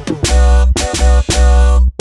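Background music: a hip-hop style track with heavy bass hits and sustained synth chords, cutting out briefly just before the end.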